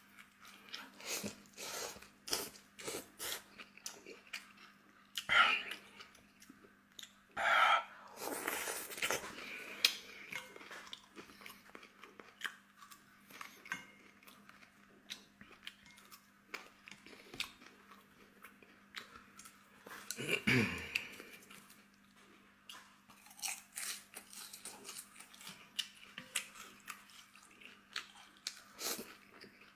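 Close-miked eating: a person chewing and biting into crunchy food, with many sharp crunches and a longer, denser stretch of noise about eight seconds in.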